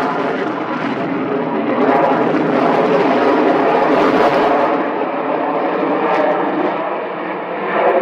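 Aircraft engine noise, loud and steady.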